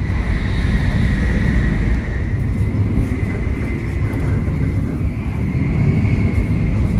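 Shinkansen bullet train running at speed, heard from inside the cars: a steady low rumble with a thin, steady high whine above it.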